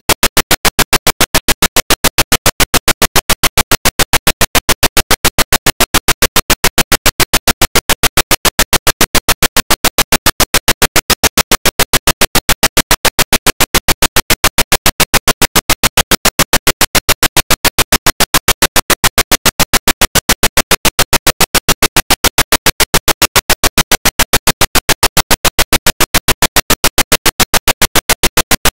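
A fast, even train of sharp clicks, loud and unchanging, that drowns out everything else: the sound of a corrupted digital audio signal rather than the room.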